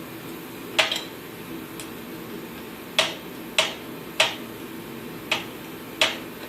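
Light metallic clicks and clinks, about six, irregularly spaced, as tools and small metal heater parts are handled during disassembly, over a steady low hum.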